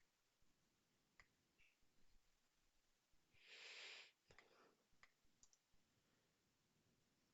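Faint, scattered computer mouse clicks, several seconds apart, with one short soft hiss a little past halfway.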